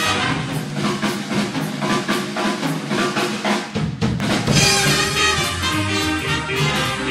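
Background music: a drum-led passage with quick snare and bass-drum hits, giving way about four seconds in to sustained melodic notes over the beat.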